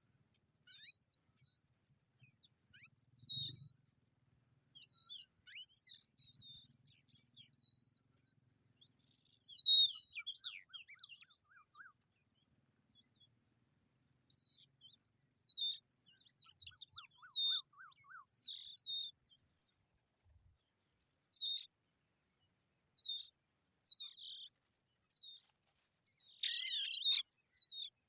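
Small birds chirping: short, high chirps repeated on and off, with two brief lower trills in the middle and a louder, denser run of chirping near the end.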